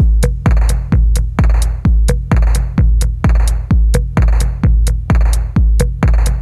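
Electronic background music with a heavy kick drum on a steady beat, a little under two beats a second.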